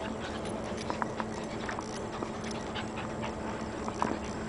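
Two puppies play-wrestling on a hard floor: scattered short clicks and scuffles of paws and claws, over a steady low hum.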